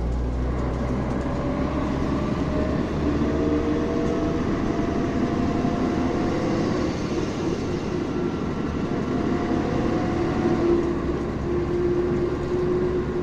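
City bus under way, heard from inside the passenger cabin: the engine and drivetrain run under a steady road noise. Whines rise in pitch twice as it accelerates, then one settles into a steady whine near the end.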